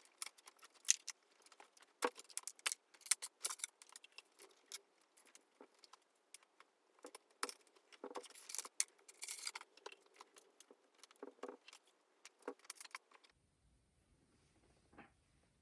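A rapid, irregular run of small hard clinks and clatters, like things being handled in a kitchen, which cuts off abruptly about thirteen seconds in and leaves faint room tone.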